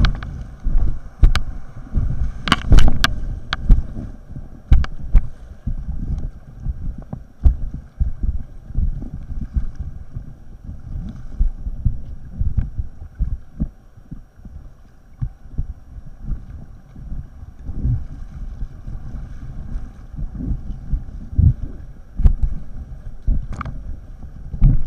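Inflatable kayak on a river, heard from a helmet camera: an uneven, muffled rumble of water and wind buffeting, broken by sharp knocks, several close together a couple of seconds in and one more near the end.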